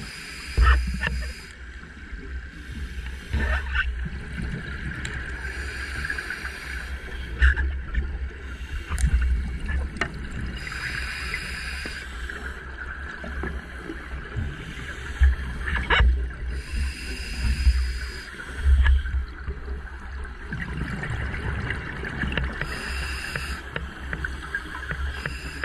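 Scuba regulator breathing heard underwater through the camera housing. Hissing inhalations, six in all at uneven intervals, alternate with low gurgling bursts of exhaled bubbles.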